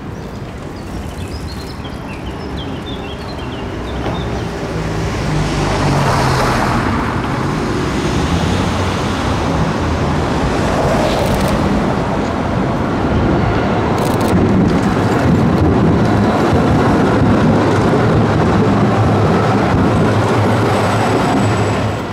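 Street traffic: a delivery van drives past, followed by a tram approaching and running by on the street tracks. The noise swells a few seconds in and stays loud, over a low steady hum. There are a few faint high chirps near the start.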